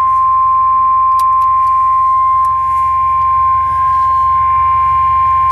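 NOAA Weather Radio warning alarm tone: a single loud, steady tone near 1050 Hz, held without a break over a low rumble. The tone signals that a new warning is about to be read, here a severe thunderstorm warning.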